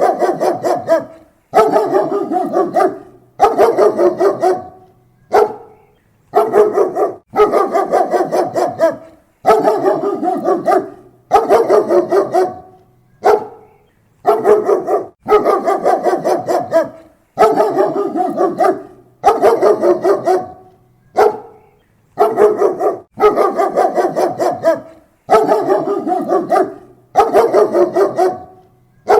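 German Shepherd barking close up: rapid runs of loud barks lasting about a second each, broken by short pauses and repeating steadily, with an occasional single short bark between runs.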